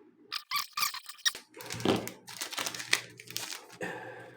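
Foil booster pack wrapper being torn open and crinkled by hand: an irregular run of crackling and tearing.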